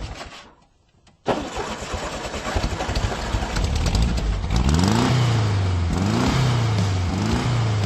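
A car engine starts up suddenly and is then revved, its pitch rising again and again about once a second.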